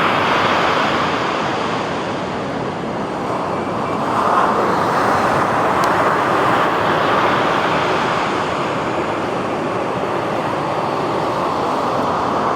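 Surf on a beach: a steady rush of breaking waves that dips about two seconds in and swells again about four seconds in.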